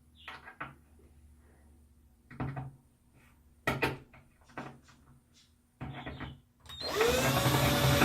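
A few scattered clicks and knocks of a screw and hardware being handled. Near the end a power drill starts up with a rising whine and keeps running loudly.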